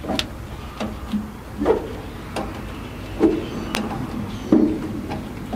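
Wrench turning a truck's air-brake slack adjuster, giving a run of irregular clicks and knocks about every half second to a second: the brakes are being taken up because they are way out of adjustment.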